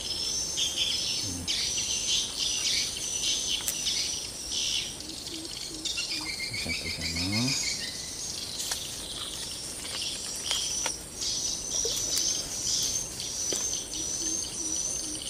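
Outdoor ambience of insects and birds: a steady high insect trill with repeated bird chirps over it, and a short series of falling chirps about six to seven seconds in. A brief low sound is heard around seven seconds in.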